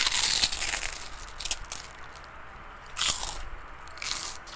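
Instant noodles being slurped and eaten: a long loud slurp at the start, then shorter slurps about one and a half, three and four seconds in.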